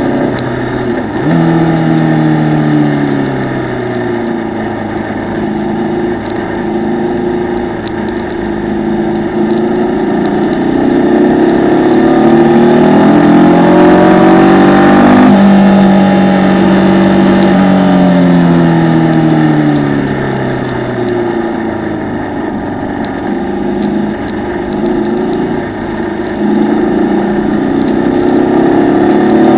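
Formula Vee's air-cooled Volkswagen flat-four engine heard onboard at racing speed: the pitch sinks early on as it slows, then climbs steadily for several seconds under acceleration, cuts back sharply about halfway through and falls away as the car slows for a corner, before climbing again near the end. A steady hiss runs underneath.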